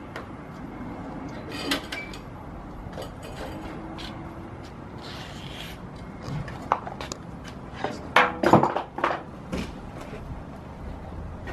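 Scattered clicks, knocks and metal rattles of a bicycle being handled and wheeled out of a storage shed, with a burst of louder clattering about eight seconds in.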